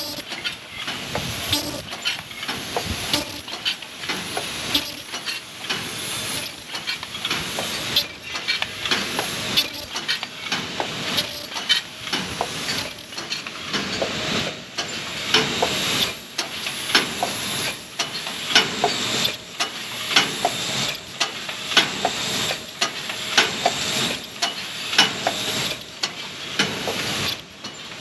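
MB-S60 paper noodle box forming machine running, forming paper boxes: a continuous run of quick mechanical clacks and knocks over a steady hiss.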